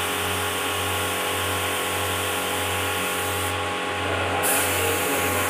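Air compressor running with a steady, evenly pulsing hum while a hose-fed spray gun hisses as it sprays polish; the hiss drops away for about a second past the middle and then comes back.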